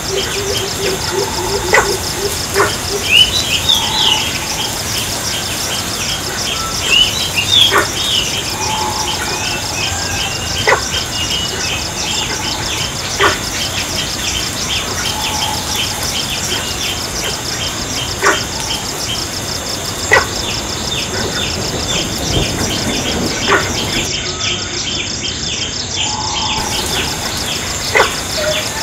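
Insects chirring steadily in a high, even drone, with rapid bird chirps over it. A few sharp clicks or snaps stand out every few seconds.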